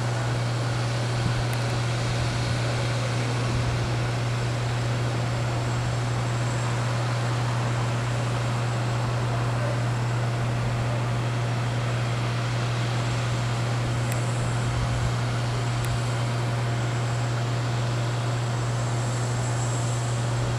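Steady low drone with a faint high whine from a parked Airbus A330 freighter and its ground equipment idling on the apron.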